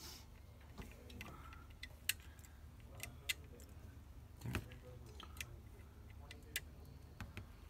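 Scattered small clicks and taps of tools and parts being handled at an electronics workbench, irregularly spaced, over a faint low steady hum.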